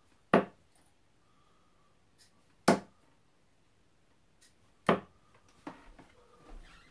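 Three darts thudding one by one into a Winmau Blade bristle dartboard, a little over two seconds apart. Fainter small knocks and rustles follow near the end.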